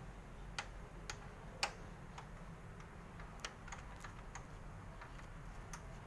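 A screwdriver working a screw on a metal bracket inside an opened Canon iR copier: about a dozen short, sharp clicks at irregular intervals, one louder click about a second and a half in.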